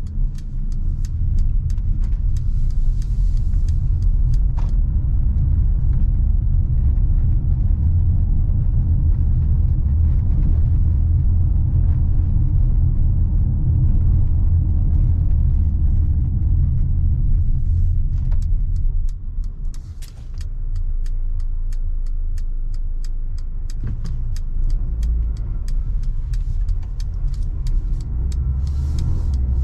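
Mercedes-Benz GLA's 1.3-litre turbocharged four-cylinder and tyres on the move, heard as a steady low rumble from inside the car that eases off briefly about two-thirds of the way in. Faint, fast, even ticks run through the later part.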